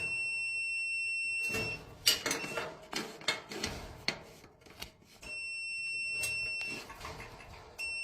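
Multimeter continuity beeper sounding a steady high beep three times, each lasting a second or two, as the probe touches the dryer heating element and its metal canister: the beep shows the element is shorted to the canister. Clicks and knocks of the probes and parts being handled come between the beeps.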